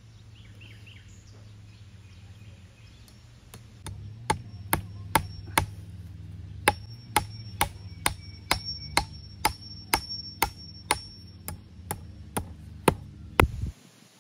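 Hammer blows fixing barbed wire to a thin tree trunk: a run of light, even strikes, about two to three a second, starting a few seconds in, pausing briefly, then carrying on, with a faint metallic ring.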